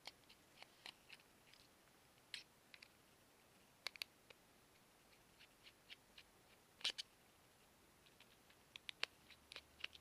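Faint, irregular clicks and ticks of a T3 Torx precision screwdriver working the screws out of a BlackBerry Z10's plastic back plate. A louder click comes about seven seconds in, and a quick run of clicks comes near the end.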